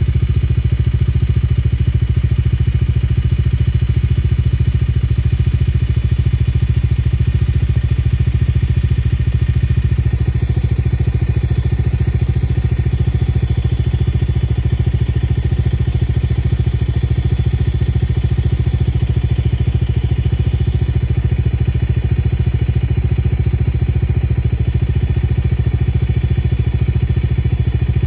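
A vehicle engine idling steadily close by, with a fast, even pulse and no change in speed.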